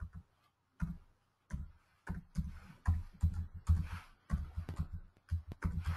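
Computer keyboard being typed on: an irregular run of muffled keystrokes, sparse at first and coming thick and fast from about two seconds in.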